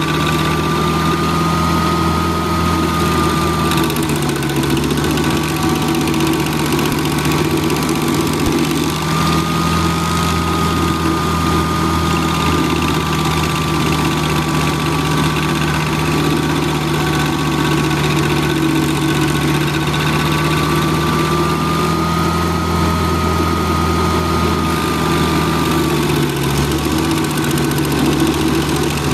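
Vermeer 630 stump grinder's air-cooled engine running steadily while its cutter wheel grinds into a stump. A high whine wavers slightly in pitch and dips briefly about four seconds in and again near the end.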